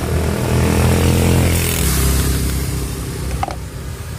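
A motor vehicle's engine passing on the road, growing louder in the first second or two and then fading away.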